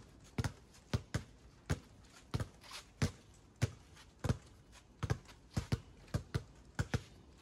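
Two basketballs dribbled on asphalt pavement: a steady run of sharp bouncing thuds, about two or three a second.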